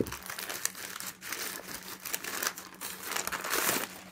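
Parcel packaging crinkling and crackling as it is unwrapped by hand, in a dense run of short irregular crackles.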